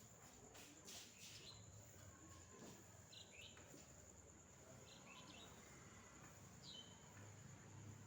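Near silence: faint outdoor ambience with a few short, faint bird chirps, about three, five and seven seconds in, over a steady high-pitched whine like an insect.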